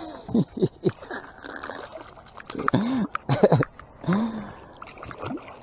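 A big freshwater drum splashing at the water's surface as it is reeled up beside the boat, in several short splashes, with short wordless grunts and exclamations from the angler.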